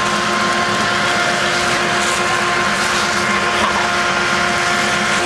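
A steady mechanical drone: a constant, unchanging hum over a loud hiss.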